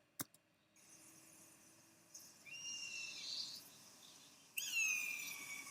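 A single click, then faint steady wind ambience with two descending screeching cries of an eagle sound effect, the first about two seconds in and the second, louder one about four and a half seconds in.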